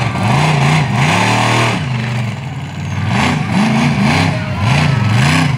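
Monster truck engine revving hard, its pitch climbing and dropping again and again, about three times a second in the later part, with one longer fall in pitch after about a second.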